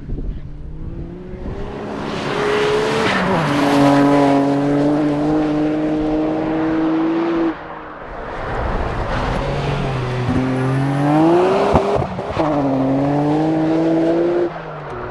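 Nissan Skyline GT-R's straight-six racing engine under hard acceleration. The pitch climbs and falls sharply at gear changes about three seconds in and again about twelve seconds in. The engine note drops away suddenly near the middle and again near the end as the throttle comes off.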